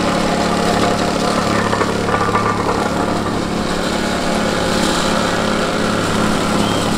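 A small engine running steadily at idle, a low even hum with no change in speed.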